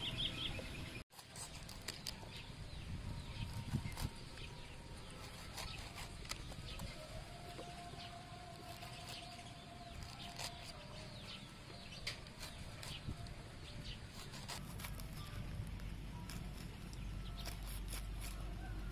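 A large kitchen knife slicing the rind off a fresh pineapple on a wooden board: a string of short, crisp cuts and scrapes. A faint, long animal call sounds in the background around the middle, and the sound cuts out briefly about a second in.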